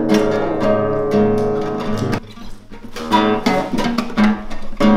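Classical nylon-string guitar strummed in chords, breaking off briefly a little after two seconds, then picked and strummed chords again.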